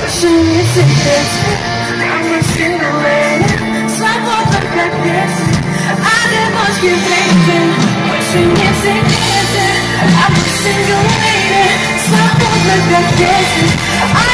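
Live pop concert music over a large festival sound system: a sung melody over a band with drums keeping a steady beat.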